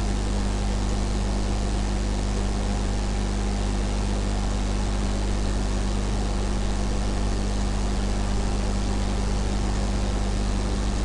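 Steady electrical hum with hiss, unchanging and with no other sound.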